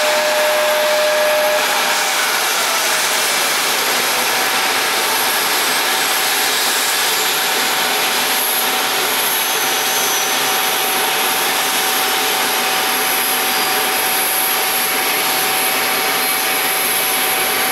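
Steady turbine whine and rushing air from a parked Bombardier CRJ-900 regional jet, with a high thin whistle over it. One steady tone cuts out about a second and a half in, and a slightly higher one settles in a couple of seconds later.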